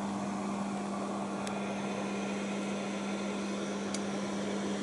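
Cooling fan of a Kodak Carousel S-AV2000 slide projector running steadily with the lamp on: an even whir with a constant hum. Two faint ticks come about a second and a half in and near the end.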